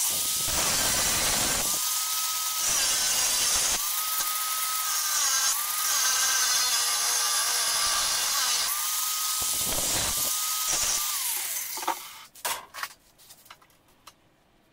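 Electric angle grinder with a thin disc starting up and cutting into a steel flat bar: a steady high motor whine over the hiss of the disc on metal, the pitch dipping briefly each time the disc bites harder. About twelve seconds in it switches off and the whine falls away, followed by a few light clicks and knocks.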